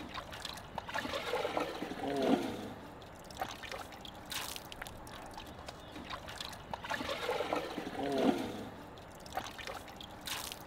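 Asian elephant drinking: it squirts water from its trunk into its mouth, with trickling, gurgling water, twice, about six seconds apart.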